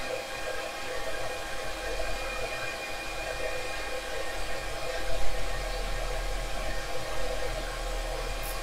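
Steady whirring of a car-amplifier bench-test setup, with a low hum and several faint steady whining tones, as the amplifier drives a 1.33-ohm dummy load.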